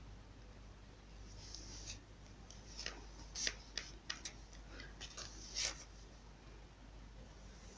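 Clear glass beads clicking against each other and the tabletop as they are picked up and strung onto an elastic cord: a scatter of faint, light clicks, bunched in the middle of the stretch.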